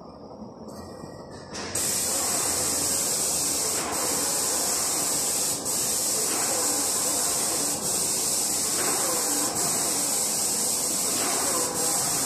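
Airless paint spray gun, fed by a Mark V airless sprayer, hissing steadily as it atomises paint at high pressure. It switches on about two seconds in and is cut briefly several times as the trigger is let off between passes.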